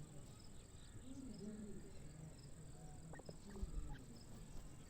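Grey francolins calling faintly: a few short curving calls about a second in, and a couple of sharp notes a little after the middle, over a steady high insect buzz.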